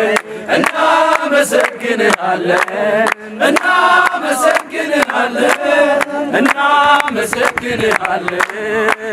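A group of men singing and chanting together, with hand clapping.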